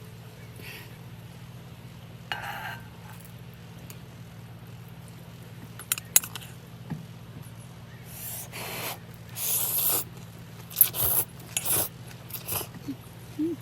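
Scattered short scraping and rustling noises with a few sharp clicks, over a steady low hum.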